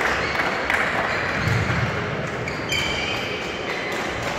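Echoing badminton hall noise: shuttlecocks hit on nearby courts and court shoes squeaking on the floor, with one sharp high squeak about two and a half seconds in.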